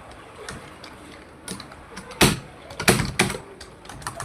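Typing on a computer keyboard: a quick run of keystrokes, with a few much louder clacks a little after two seconds and around three seconds in.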